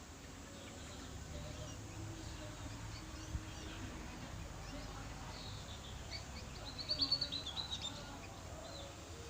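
A munia's soft, high chirping, rising into a quick, louder run of twittering notes about seven seconds in. This is the bird practising song it is learning to copy from a canary.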